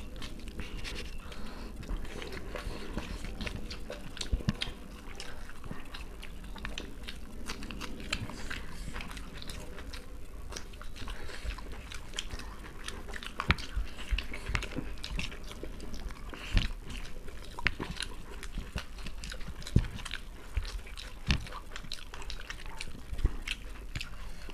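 Close-miked chewing of chicken biryani by two people eating with their hands, with many scattered sharp mouth smacks and clicks over a low steady hum.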